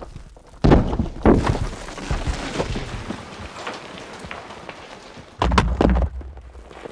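Landslide: rocks tumbling and crashing, with heavy low thuds about half a second in, again a little later, and near the end, over a steady clatter of smaller stones trickling down between them.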